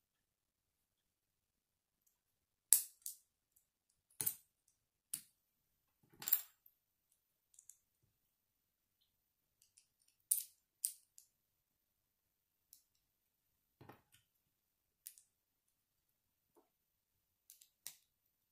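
Small plastic Lego pieces clicking as they are pressed and snapped together by hand, about a dozen sharp clicks at irregular intervals with quiet pauses between.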